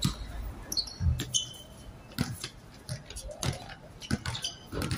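Basketball bouncing on a hard outdoor court, dribbled several times at about one bounce a second, with a few short high sneaker squeaks about a second in.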